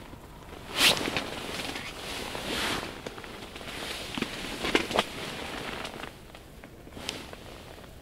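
Rustling handling noise with a few sharp clicks or crackles, the loudest about a second in and a cluster around five seconds in.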